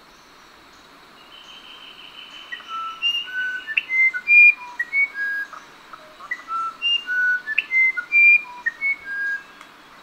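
Musician wren singing: a string of clear, pure whistled notes that jump from one pitch to another. The notes begin a couple of seconds in, over a steady background hiss.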